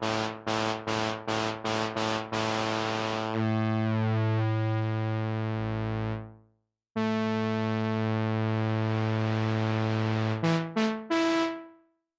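Teenage Engineering OP-1 Field synthesizer playing a low, rich-toned patch: a run of short repeated notes, about three a second, then two long held notes and a couple of short ones, the last dying away just before the end.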